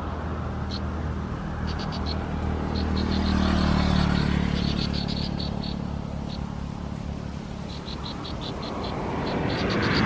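A low, steady engine-like drone that swells and fades, the swell strongest a few seconds in and again near the end. Over it come short, quick runs of high chirping ticks, three to five at a time, repeated every second or so.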